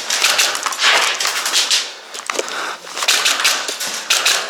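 Airsoft guns firing on full auto: rapid clicking bursts, a long one at the start and another over the last second and a half, with a short lull between.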